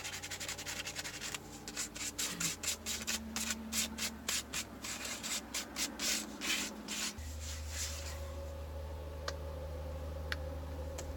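Wood being sanded by hand with sandpaper in quick back-and-forth strokes, about four a second, which stop about seven seconds in. After that a steady low hum is left, with two light clicks.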